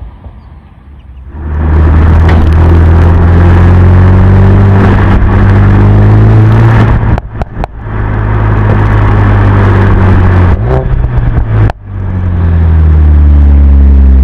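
Turbocharged 2.0-litre four-cylinder of a Stage 1 tuned Mercedes-AMG A45 S 4MATIC+ revving hard and loud after a quieter start. It breaks off twice, about seven and eleven seconds in, with sharp pops and crackles from the exhaust.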